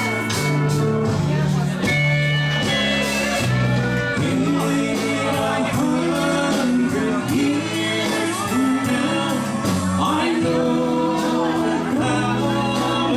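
Live country band playing a slow ballad with a singer, long held notes and drums keeping an even beat, heard from out in a large hall.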